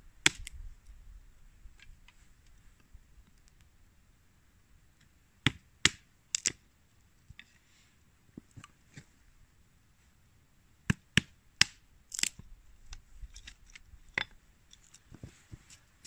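A string of sharp, short clicks and snaps, some single and some in quick groups of two or three, with quiet gaps between them.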